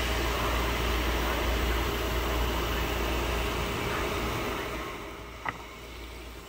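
Fizzy drink pouring over ice cubes into a glass: a steady fizzing splash that grows quieter about five seconds in, with one sharp click shortly after.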